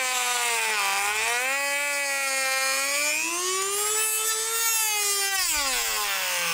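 Handheld electric rotary tool running as it cuts into the plastic shell of a football helmet: a steady whine whose pitch wavers, dipping about a second in, rising through the middle and dropping again near the end.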